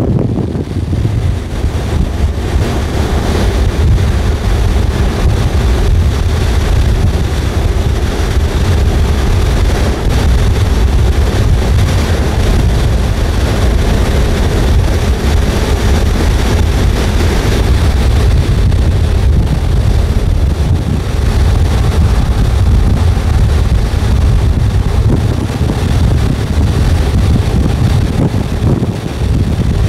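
Strong wind buffeting the microphone: a loud, steady, gusting rumble that stays low-pitched.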